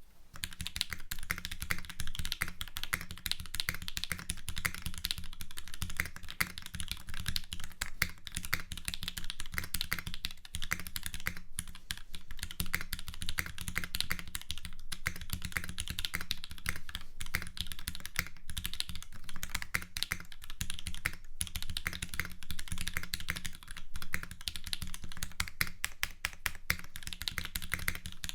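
Steady, fast typing on a custom Dalco 959 Mini GT mechanical keyboard fitted with lubed, filmed Gateron Ink switches on 60g springs and original Cherry-profile double-shot keycaps. It gives a dense run of key clacks with a few brief pauses.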